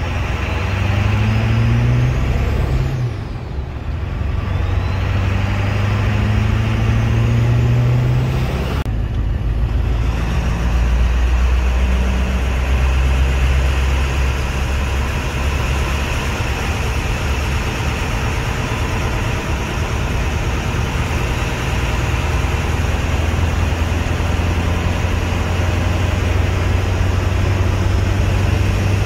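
2001 Ford 7.3 L Powerstroke V8 turbo diesel with a 66 mm Garrett Powermax turbo, heard from inside the cab while driving. The engine pulls with its pitch rising twice in the first several seconds, dips briefly about three seconds in, then runs steadily at cruise.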